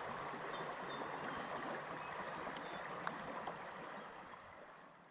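Steady rush of river water with a few faint high bird chirps, fading out near the end.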